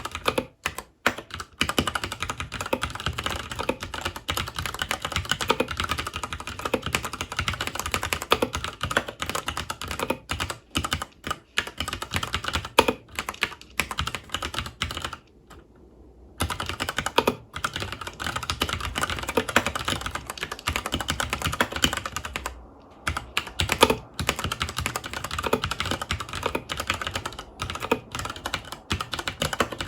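Fast continuous typing on a FILCO Majestouch 2 tenkeyless mechanical keyboard with Cherry MX Brown tactile switches, a dense clatter of key clicks that pauses for about a second midway and briefly again later.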